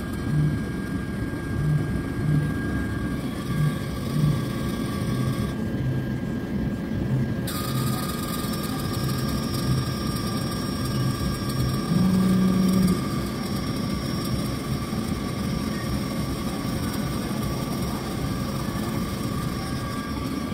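Robotic cotton candy vending machine running, its spinning head and motors making a steady whir with a low hum that pulses on and off. About twelve seconds in there is a brief louder hum.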